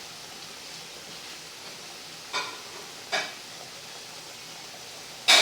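Corned beef in tomato sauce sizzling faintly in a pan, with three short strokes of a cooking utensil against the pan, the last one about five seconds in the loudest.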